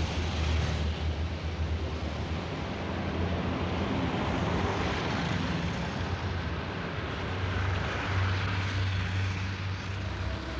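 Steady low rumble and hiss of street traffic, a vehicle drone that swells slightly near the end.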